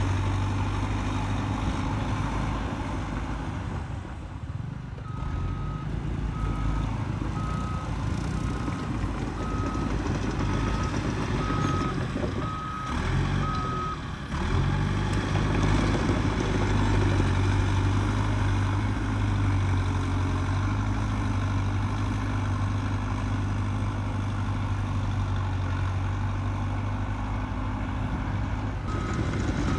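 Cat D3K2 XL bulldozer's diesel engine running, with its reversing alarm beeping steadily, a little faster than once a second, for about nine seconds. The alarm stops, then starts again near the end.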